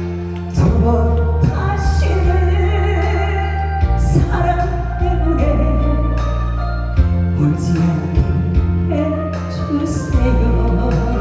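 A female singer singing a Korean trot song live with vibrato, over an instrumental accompaniment of steady bass and regular drum beats.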